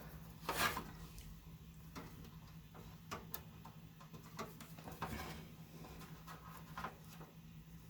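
Light handling noises of cables and connectors being worked inside a PC case: rubbing and a few small clicks, the loudest about half a second in, over a steady low hum.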